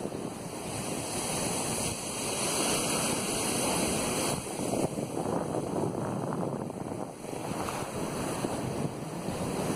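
Ocean surf breaking on a sandy beach, a steady rushing wash that swells and eases, with wind buffeting the microphone.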